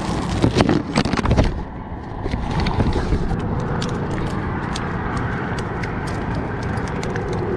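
Close handling of gear in a fishing bag: a cluster of loud bumps and rustles in the first second and a half, then light crinkling and clicking over a steady low rumble.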